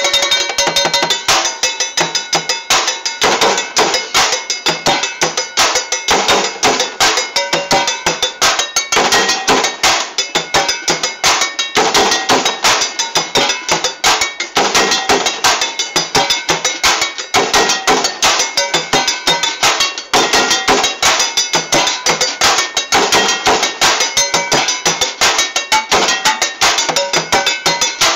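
Fast, loud street drumming with sticks on the bottoms of old upturned cooking pots: a dense, steady rhythm of metallic strikes, each pot ringing at its own pitch. The playing grows denser about a second in.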